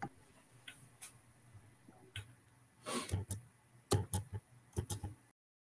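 Faint scattered clicks and knocks picked up through video-call microphones, with a louder cluster of sharp knocks about four to five seconds in. The audio then cuts off to dead silence near the end.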